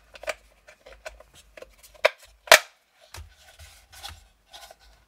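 Plastic lid being fitted and clipped onto a plastic wiring-module housing: a run of light clicks and handling rubs, with two sharper snaps about half a second apart around two seconds in.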